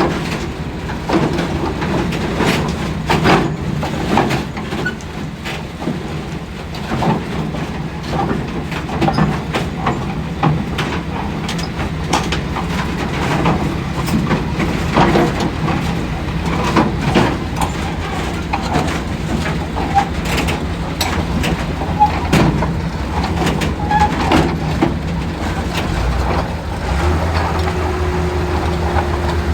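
Komatsu D31P crawler bulldozer's diesel engine running steadily under a constant low drone, with irregular metallic clanks and rattles from its steel tracks and blade as it works. The engine note shifts near the end.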